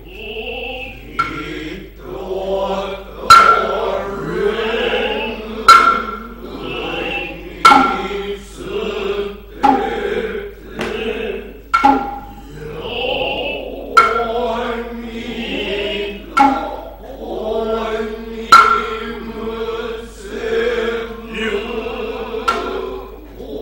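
Noh chanting (utai): sustained, wavering sung tones, punctuated by sharp hand-drum (tsuzumi) strikes about every two seconds.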